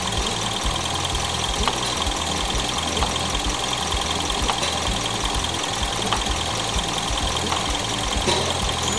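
Toyota VVT-i four-cylinder engine idling steadily with the hood open, with a few faint clicks over it. A combustion leak tester on the radiator neck is drawing air through its blue test fluid to check for a leaking head gasket.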